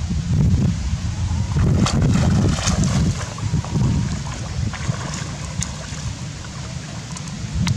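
Wind rumbling on the microphone over water sloshing and splashing from a monkey swimming, with a few short splashes about two seconds in, around five seconds and near the end.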